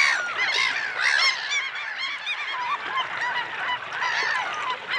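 A flock of birds calling: many short, overlapping calls with no pause.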